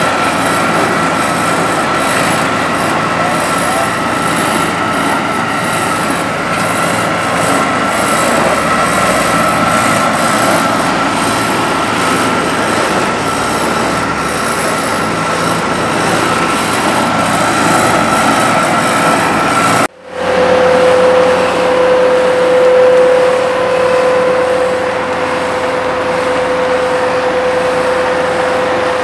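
Heavy asphalt-paving machinery, an asphalt paver and dump trucks, running steadily with a continuous high whine over the engine noise. The sound drops out for an instant about twenty seconds in and picks up again, now with a lower steady whine.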